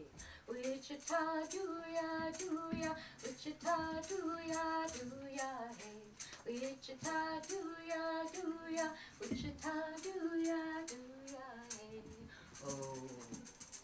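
A woman and young children singing a song together, with a steady beat of sharp clicks keeping time.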